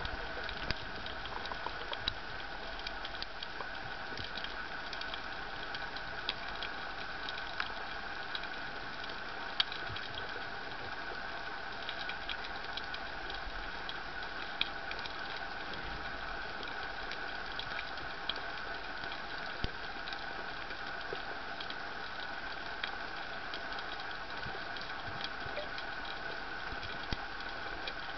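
Underwater ambience heard through a camera's waterproof housing: a steady mechanical hum with scattered short clicks.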